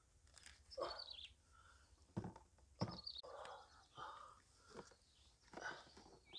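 Faint handling sounds of eggs and hands on a hollowed green banana trunk: soft rustles and a few light knocks, two of them a little past two seconds in. Small birds chirp now and then, with short high falling calls.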